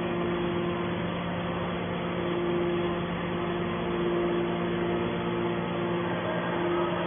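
Hydraulic scrap-metal baler running: the steady hum of its motor and hydraulic pump, with a tone in the hum that swells and fades a few times.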